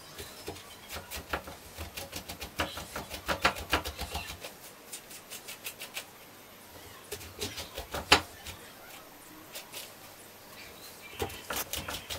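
A metal spoon scraping and scooping the soft flesh out of a halved eggplant: a run of quick, irregular scrapes and clicks, then sparser ones, with one sharp knock about eight seconds in.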